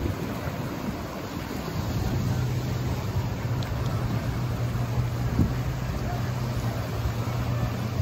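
Steady low engine hum over outdoor background noise, the hum setting in about two seconds in.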